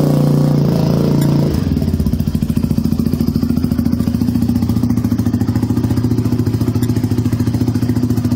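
2006 Honda TRX450R's single-cylinder four-stroke engine running through an aftermarket exhaust with a quiet insert: held at raised revs, it drops back to idle about a second and a half in and then idles with a steady, even pulse.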